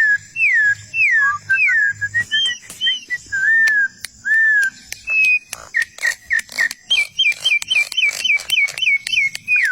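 A bird whistling clear, down-slurred notes one after another, then a fast run of short whistled notes, about five a second, in the last few seconds. Sharp clicks are scattered throughout, and fainter high chirps sound behind.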